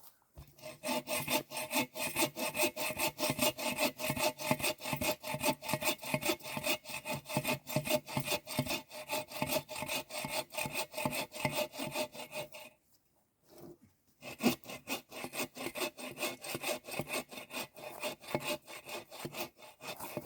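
Bow saw cutting through a log with quick, even back-and-forth strokes. It stops for a moment about two thirds of the way through, then the sawing resumes.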